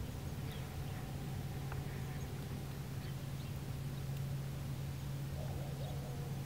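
Outdoor ambience: a steady low hum with faint bird chirps now and then.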